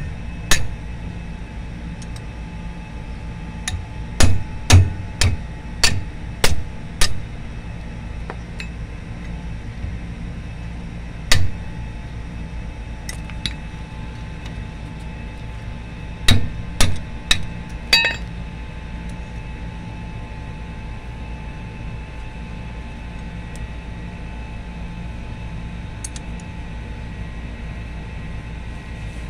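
Hammer blows on metal during wheel hub and brake work, striking a part that is stuck stiff. They come in bursts: about seven quick blows a few seconds in, single blows around the middle, and a run of five later, the last one ringing. A steady low hum runs underneath.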